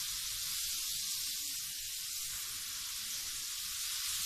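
Meat sizzling in a hot grill pan on a gas stove: a steady, even frying hiss as the pieces are laid in.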